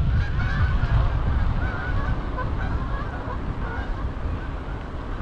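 A large flock of geese flying overhead, many honking calls overlapping, over a low rumble of wind on the microphone.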